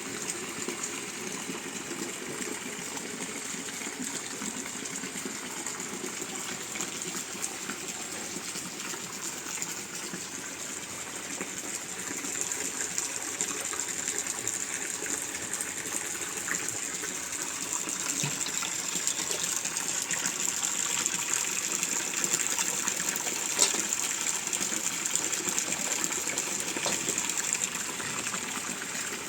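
Steady rush of heavy rain and running water, growing louder from about twelve seconds in, with a single sharp tick near the end.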